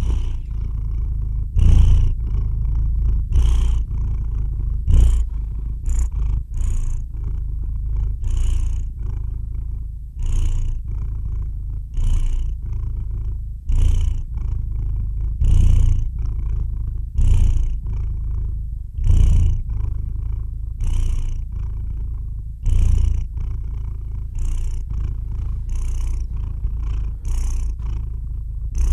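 Domestic cat purring close to the microphone: a steady low rumble, with a breathy rise about every two seconds as the cat breathes in and out.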